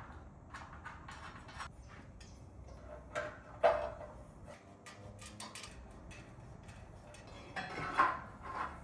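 Steel gym-rack parts knocking and clanking as they are handled and fitted during assembly: a run of small clicks and taps, with two louder clanks, one about a third of the way in and one near the end.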